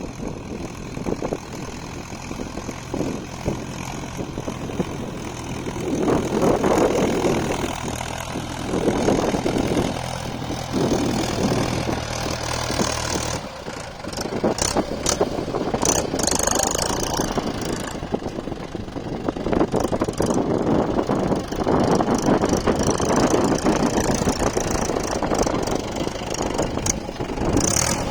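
Tractor engine running while ploughing. A steady low drone changes abruptly about halfway through to a rougher, noisier running sound with scattered knocks and clatter.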